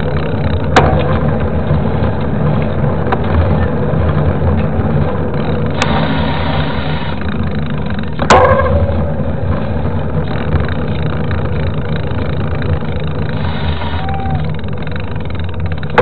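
Steady low rumble of wind buffeting the microphone and a knobby mountain-bike tyre rolling on asphalt while riding. Two sharp knocks stand out, one about a second in and a louder one about eight seconds in.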